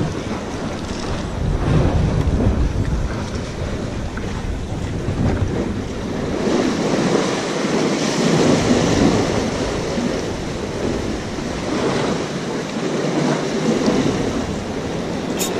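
Sea waves washing against the concrete pillars of a breakwater, swelling and easing, with wind rumbling on the microphone.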